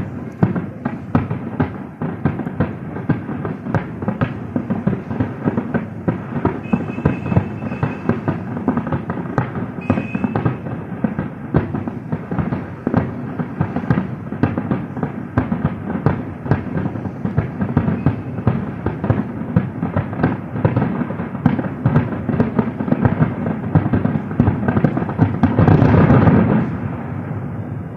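Fireworks display in its closing barrage: a dense, continuous run of bangs and crackles that builds to its loudest volley near the end, then begins to die away.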